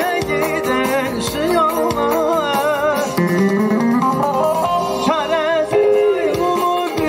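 Live Turkish folk music: a male singer with a wide, wavering vibrato over a bağlama, a long-necked plucked lute, played through a PA.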